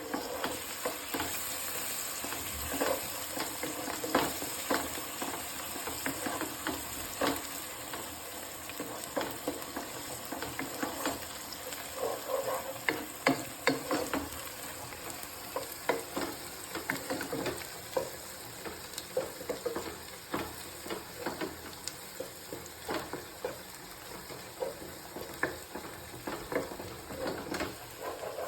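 Sliced onions frying in a pan, sizzling steadily, with frequent scrapes and clicks of a spoon stirring them.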